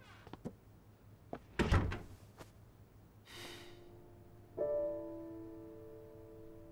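A few light clicks and a dull thud against a door, then soft piano background music comes in, a chord ringing on from a little past halfway.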